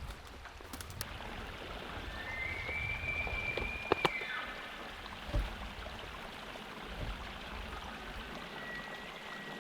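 Elk bugle: a high whistle that rises and then holds for about two seconds, heard over a steady rushing hiss like running water. A sharp click comes at the end of the whistle, and a fainter short whistle sounds near the end.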